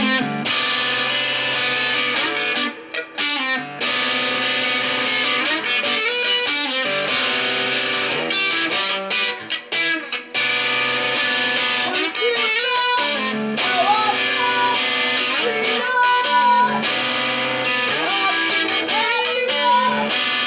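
Distorted electric guitar playing heavy chord riffs, with a few brief stops about three seconds in and bent lead notes in the middle stretch.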